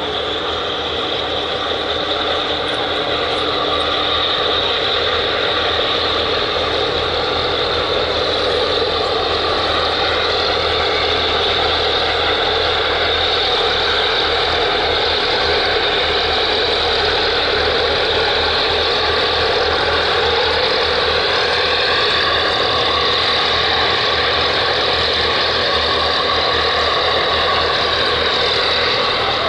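Steady, loud running noise of engines and machinery from the container ship Hyundai Hope passing close by, swelling over the first few seconds and then holding even.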